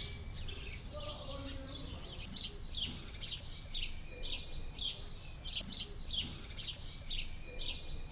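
Small birds chirping: a steady series of short, high, downward chirps, one or two a second, over a low steady rumble.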